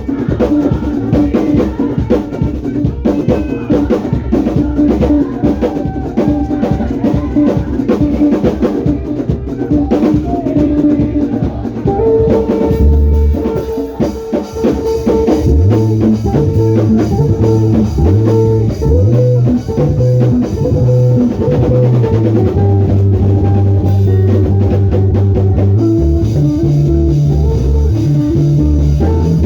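Instrumental band music with drum kit, guitar and bass playing a steady groove, the bass settling into long held notes about halfway through.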